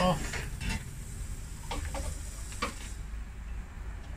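A sharp click, then a handful of lighter clicks and knocks from the air-conditioning manifold gauge set and charging hose fittings being handled.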